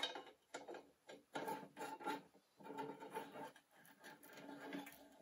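Wrench turning steel nuts on the through-bolts of a homemade crankcase splitting plate, a run of short metallic scraping strokes, unevenly spaced. The nuts are being tightened to force the Lycoming O-360 crankcase halves apart.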